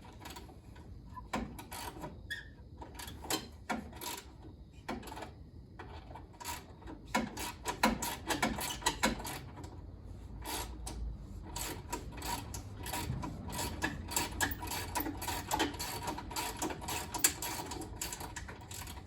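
Irregular metallic clicking and ticking from hand tools working on the truck's radiator fittings. The clicks come in runs that grow denser and louder about seven seconds in.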